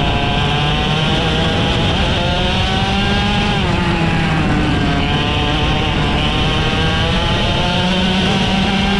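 IAME X30 125cc two-stroke kart engine running hard on track. Its note falls about three and a half seconds in as it slows, then climbs again as it accelerates, and rises once more near the end, over a steady rush of noise.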